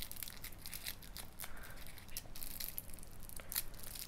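Small crinkly wrapping being unfolded by fingers, rustling and crinkling in a run of soft, irregular crackles.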